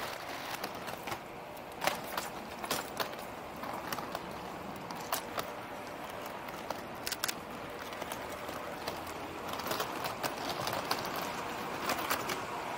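Steady background noise of a busy public place, with scattered short clicks and taps throughout.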